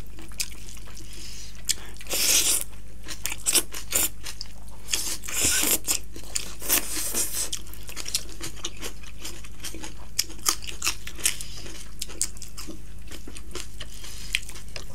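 Close-miked eating sounds of two people eating rice, chicken and greens by hand: steady chewing with many short wet clicks and smacks, and a few longer crunchy bursts of chewing.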